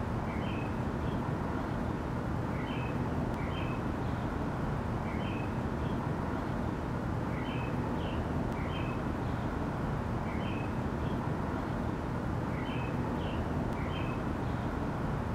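Outdoor ambience: a steady low rumbling noise, with a pair of short high chirps repeating about every two and a half seconds.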